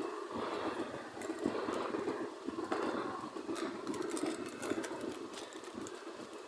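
Robot sound effect: a continuous rapid mechanical rattling and chattering, with scattered sharp clicks that grow more frequent in the second half.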